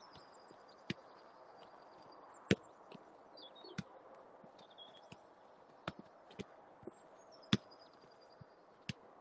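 A football being kicked back and forth in a passing drill: about seven sharp thuds at uneven intervals, with the two strongest about two and a half seconds in and about seven and a half seconds in.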